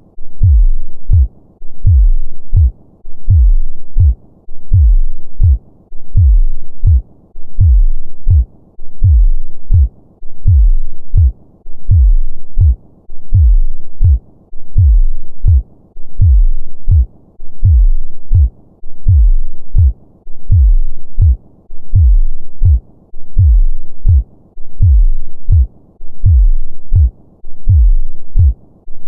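Human heartbeat of a normal heart: a steady, slow rhythm of deep, paired lub-dub thumps that repeat evenly.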